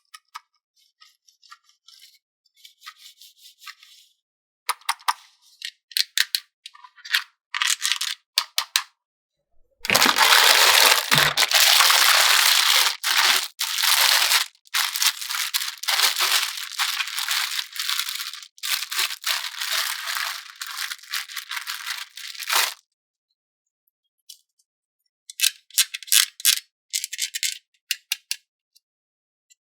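Plastic toy packaging being handled and opened: bursts of crackling and clicking, then a long loud stretch of crinkling and tearing through the middle, and more crackles near the end.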